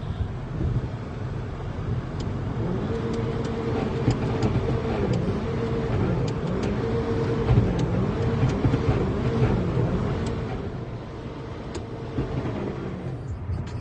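Mazda 3 engine running and being revved up and down over and over through the middle, with scattered sharp knocks: an engine with rod knock.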